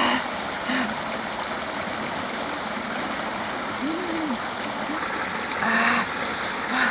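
Mountain stream running over rocks: a steady rush of water, with a few short soft sounds from close by.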